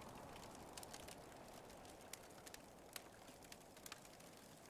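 Faint bonfire crackling: scattered sharp pops, irregularly spaced, over a low steady hiss.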